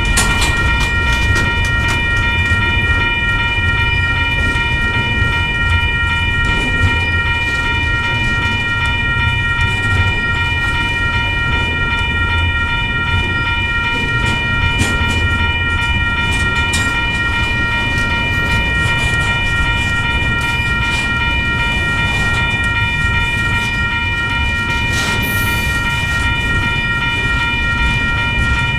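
Double-stack intermodal well cars rolling past on the rails: a steady low rumble of wheels on track, with a continuous high-pitched whine held over it the whole time and a few faint clacks.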